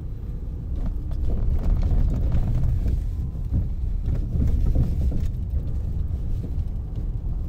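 Car's engine and tyre rumble heard from inside the cabin while driving, a steady low noise that grows louder about a second in.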